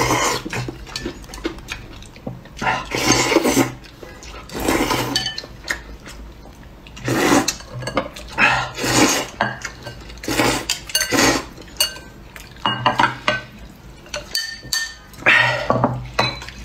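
Repeated loud slurping as noodles are sucked up from bowls of broth, about nine pulls, each under a second, with chopsticks clicking against the glass and ceramic bowls.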